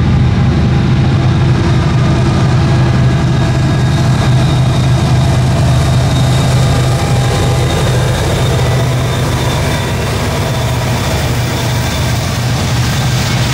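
Norfolk Southern freight train's GE ES40DC and EMD SD70M-2 diesel locomotives passing close by under power, a loud, steady low engine hum. After the middle the engine sound eases and a rising hiss of freight car wheels on the rails takes over as the boxcars roll past.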